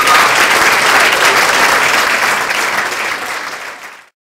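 Audience applauding, fading out near the end and stopping abruptly about four seconds in.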